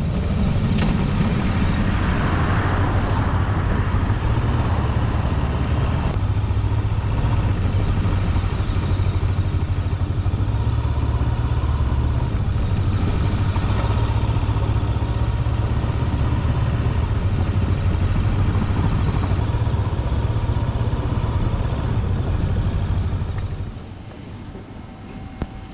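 Macbor XR5 motorcycle engine running steadily while riding, with wind rush over it. The sound falls away sharply near the end.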